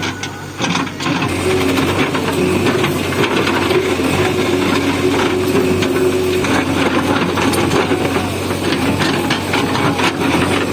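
JCB backhoe loader's diesel engine running steadily under load, with repeated sharp knocks and scrapes as the machine digs up the asphalt road.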